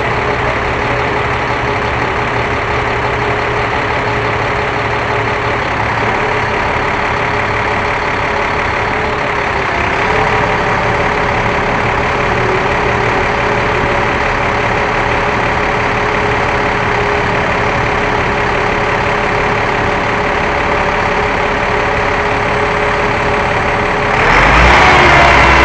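Small drone's propellers humming steadily while it hovers. Near the end the hum gets louder and rises in pitch as the drone moves.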